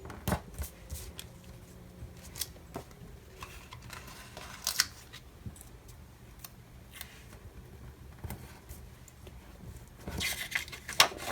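Stickers and paper planner pages being handled: scattered light clicks and rustles as a sticker is peeled from its sheet and placed on the page, with a louder rustle about four and a half seconds in and more rustling near the end.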